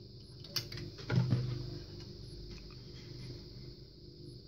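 A large slot-machine circuit board being handled and lifted on a wooden tabletop: a light click about half a second in, then a couple of dull knocks just after a second, over a faint steady hum.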